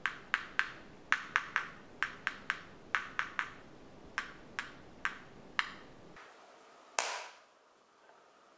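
A metal spoon tapping on the hard, glassy sugar-candy shell of a candy apple: about sixteen sharp, briefly ringing taps in irregular groups, the sign that the coating has set to hard candy. About seven seconds in comes one harder hit with a longer tail as the shell cracks.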